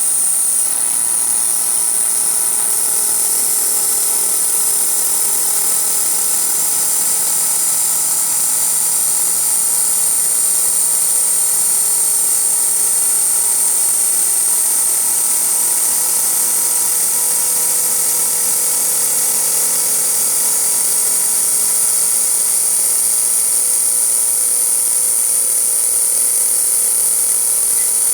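Milling machine running steadily while cutting a disc, a constant high-pitched whine over a hiss with no change in pace.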